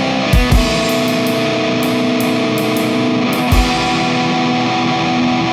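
Background rock music: held guitar chords that change twice, each change marked by low drum hits.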